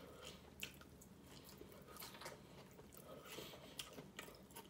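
Faint chewing of a crisp hard-shell taco, with scattered small crunches and mouth clicks.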